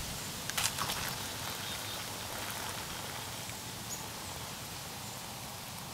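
Boiling water being poured from a small camping pot into a foil freeze-dried food pouch, a steady splashing trickle, to rehydrate the meal. A few sharp clicks come about half a second in.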